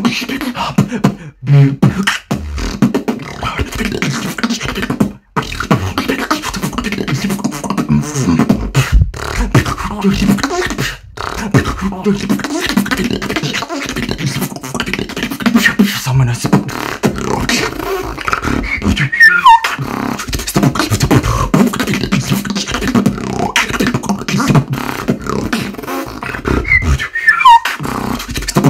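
Solo beatboxing: a dense, unbroken stream of mouth-made kicks, snares and low bass tones. Brief high falling pitch glides come in about 19 and 27 seconds in.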